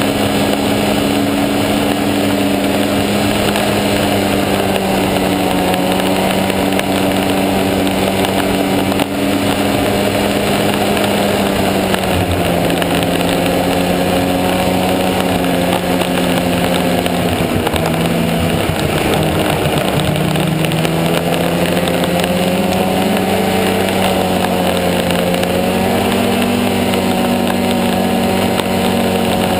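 Snowmobile engine running steadily at trail speed over a constant rush of track and wind noise. The engine note eases lower around the middle, dips for a couple of seconds, then climbs back as the throttle is opened again.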